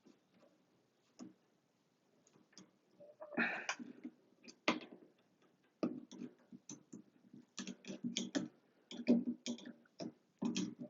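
Irregular small clicks and light knocks of needle-nose pliers and a small metal retaining clip being handled at a shower valve, coming more often in the second half.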